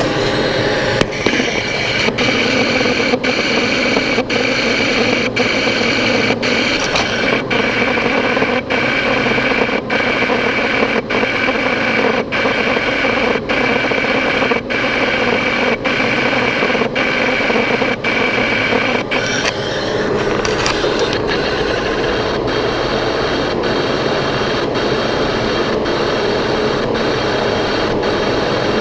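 A boring machine running, its cutter taking a 0.2 mm cut inside a vacuum compressor housing. It makes a steady grinding noise with a high whine and brief regular dips a little more than once a second. About two-thirds of the way through, the whine stops and the noise changes.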